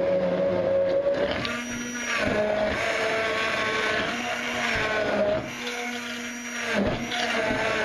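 Kenwood immersion blender running in its plastic beaker, puréeing fresh herbs and greens in warm water. Its motor pitch shifts up and down several times as the blade works through the mixture.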